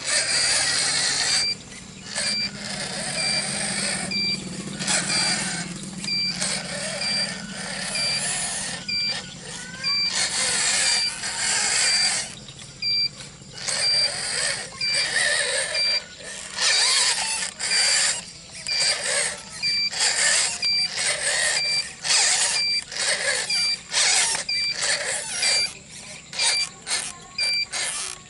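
Radio-controlled Hino dump truck, loaded with soil, driving and manoeuvring: its electric drive motor and gears whine in stop-start spurts as the throttle is worked. A short electronic beep repeats about once a second throughout.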